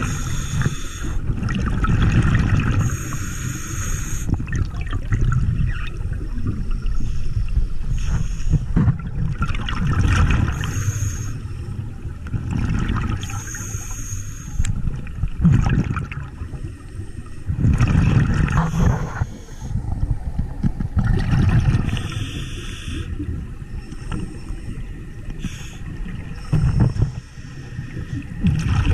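Scuba regulator breathing underwater: a hiss on each inhale, then a low rumbling burst of exhaled bubbles, the cycle repeating every few seconds.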